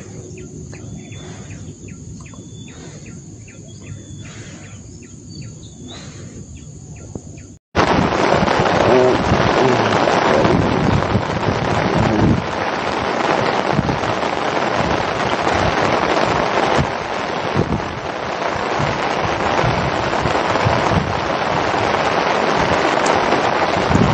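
A steady high insect trill over a soft background, then from a sudden cut about eight seconds in, a loud, even rushing noise of wind buffeting the microphone.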